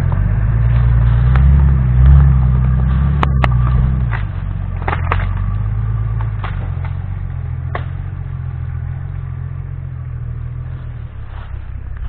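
Lifted 4x4 SUV's engine working under load as it drives through mud and long grass, loudest in the first few seconds and then fading as it pulls away. Several short sharp clicks or cracks come in between.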